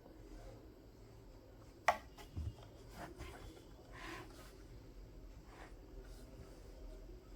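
Faint handling noises in a small room: a sharp click about two seconds in, a low thud just after it, and a softer scrape a little later.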